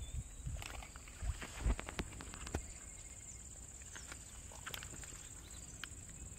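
Hands handling a freshly caught fish and working a single hook out of its mouth: scattered clicks and a few low thumps, mostly in the first two seconds. Under them runs a steady high-pitched insect buzz.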